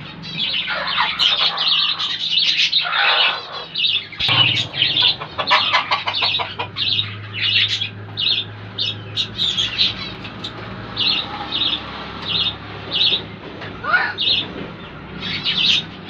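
Caged lovebirds chirping shrilly and repeatedly. The calls overlap densely at first, then come singly about once or twice a second.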